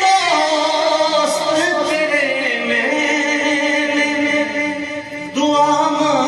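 A man's voice singing Urdu verse in a drawn-out melodic chant, the tarannum style of mushaira recitation. The phrases waver at first, then settle into a long held note, and a new phrase begins after a brief break near the end.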